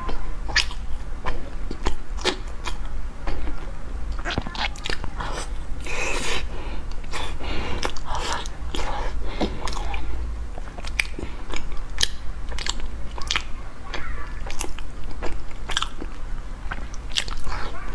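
Close-miked biting and chewing of a flaky egg-yolk pastry, its crisp layered crust crackling in many short, sharp crunches, busiest about six to eight seconds in. A steady low hum lies underneath.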